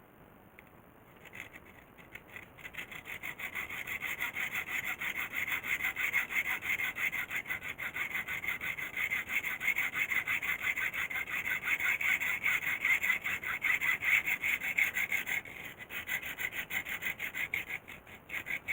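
Hand sawing: rapid, even back-and-forth saw strokes that start about a second in and build up. They pause briefly near the end, then carry on.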